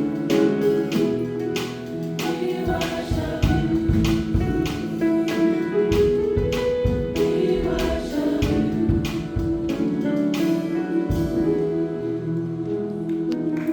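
A high school choir singing held chords over instrumental accompaniment, with a steady beat of sharp strikes.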